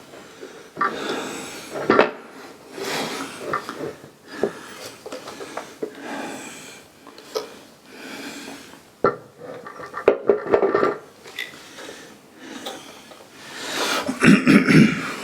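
Telescope parts being handled and fitted together during assembly: irregular clicks, knocks and rubbing of hard parts, with a louder clatter near the end.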